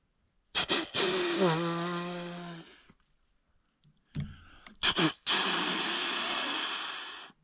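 Snort-wheeze deer call made by mouth, given twice: short sharp puffs of air followed by a long hissing wheeze. A low steady voiced tone runs under the first one. It imitates a dominant buck's challenge and is used to make a rutting buck stop.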